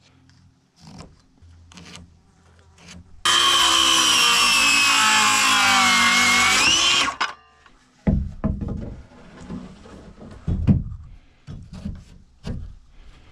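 Electric saw cutting through a 2x4 for about four seconds, its motor whine sagging in pitch under the load and rising again as the cut finishes. A few short wooden knocks follow.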